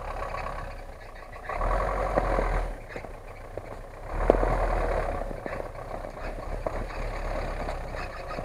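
Off-road SUV engine revving in two surges, about a second and a half in and again about four seconds in, as the vehicle fights its way through deep mud.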